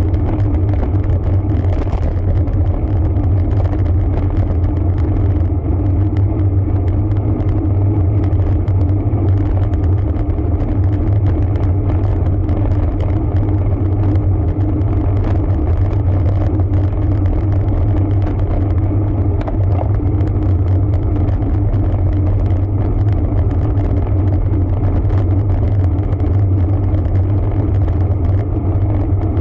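Steady low wind rumble on the microphone with tyre and road noise from a road bike being ridden.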